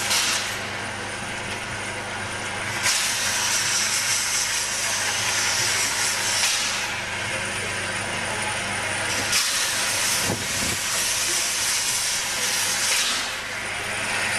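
Narrow-gauge steam locomotive hissing steam as it moves slowly, the hiss swelling in long surges of several seconds each, about three times, with quieter gaps between.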